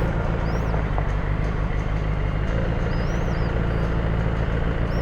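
Benelli TNT600 inline-four motorcycle engine idling steadily while stopped.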